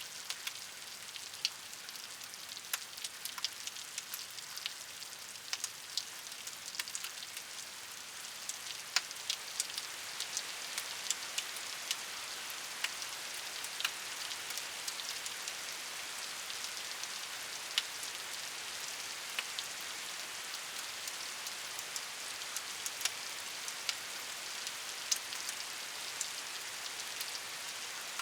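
Steady rain falling on a surface, a continuous hiss with many distinct individual drops ticking through it.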